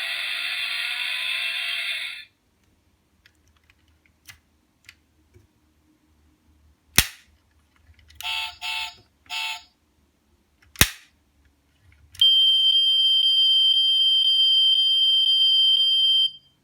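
Die-cast Tesla Model X toy's small speaker playing electronic sound effects. Its motor sound stops about two seconds in. Then come two sharp clicks with three short beeps between them, and a steady, high electronic alarm tone for about four seconds.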